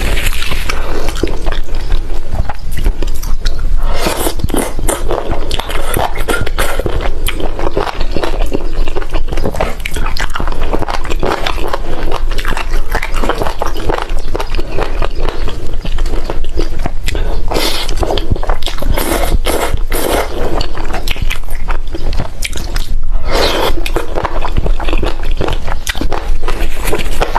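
Close-miked ASMR eating: wet chewing and biting of spicy braised chicken feet and instant noodles, a dense run of small sticky clicks and smacks.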